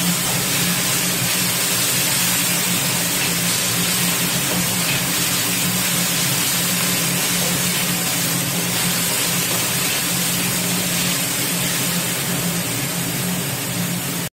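Celery leaves and chillies sizzling steadily in oil in a wok while being stirred with a wooden spatula, over a steady low hum.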